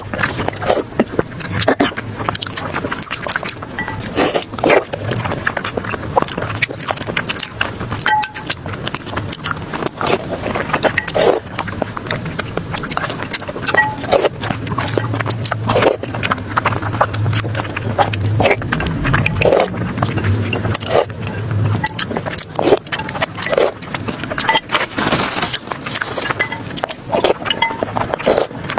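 Close-miked eating sounds: a person chewing and biting food, with irregular wet clicks and crunches. A low steady hum runs under it for several seconds in the middle.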